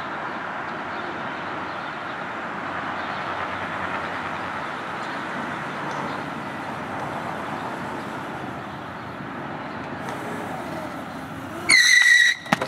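A mini bike running steadily, then near the end a loud, high-pitched tire screech lasting under a second as its small tire skids on the asphalt.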